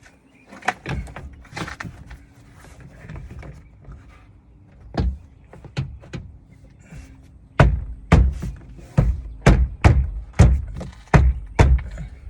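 Dull thunks on the 2001 Toyota Sequoia's rear lift door as its parts are refitted after the latch repair: a few scattered knocks, then from about halfway in a steady series of heavy thuds, about two a second.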